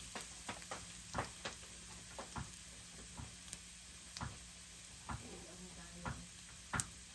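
Minced garlic frying in oil in a nonstick pan: a faint sizzle with scattered small pops and crackles, irregularly spaced.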